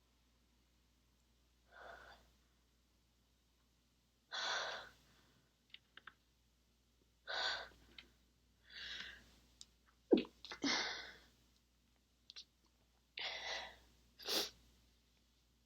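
A woman stifling a series of sneezes: about half a dozen short, muffled bursts, each separate, with quiet gaps between them.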